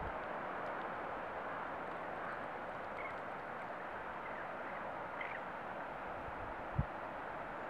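Steady rushing of the River Eden in flood, with a few faint bird chirps and one short low thump near the end.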